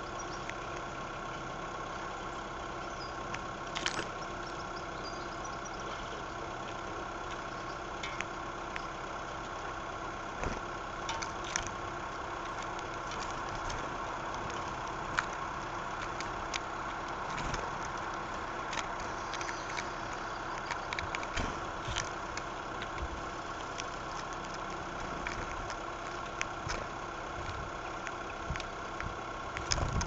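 A steady hum with several constant tones runs throughout, broken by irregular sharp clicks and taps, typical of a blackbird's bill pecking mixed grain on a wooden bird table right beside the microphone.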